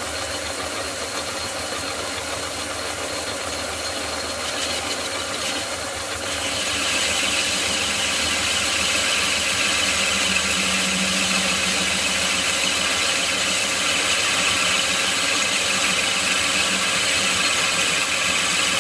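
Drummond B-type lathe, c.1918, running at about 750 RPM. About six seconds in, the tool starts a trial cut on a stainless steel test piece, and a louder, higher-pitched cutting noise joins the machine's running sound and holds steady through the cut.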